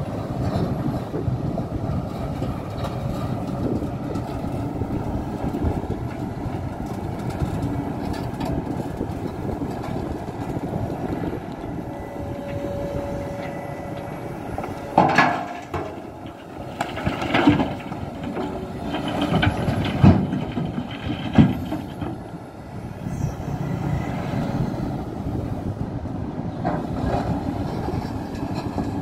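Hidromek 390LC crawler excavator's diesel engine running under load while it works hard, rocky ground to load a dump truck. Several loud crashes and clanks of rock and steel come in about halfway through.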